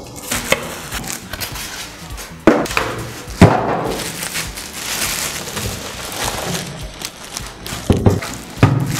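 Clear plastic bag around a desktop PC case crinkling and rustling as the case is lifted out of its packaging, with sharp knocks, the loudest about two and a half and three and a half seconds in.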